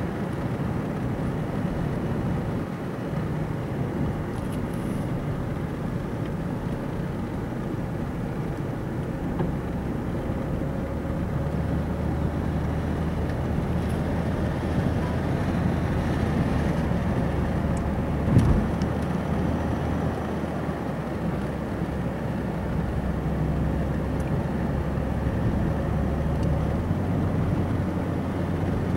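Ford Taurus engine idling steadily after a coolant refill, run to check the new hose clamp for leaks. A low hum steps up about twelve seconds in, and there is one brief sharp knock a little past the middle.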